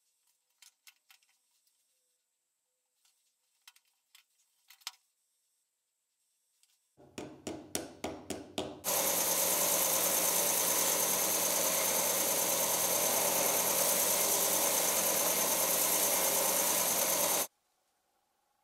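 Light handling clicks, then a belt sander starts with a quick run of pulses about seven seconds in and settles into a loud, steady sanding hiss as a small hand-held disc is pressed against the belt. It cuts off suddenly near the end.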